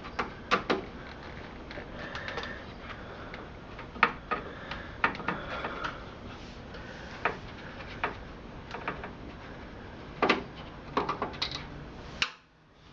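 Screwdriver working the small screws that hold a PC motherboard in the case: irregular clicks and light metallic taps against the steel case, some in quick little clusters. A low steady hiss lies under them.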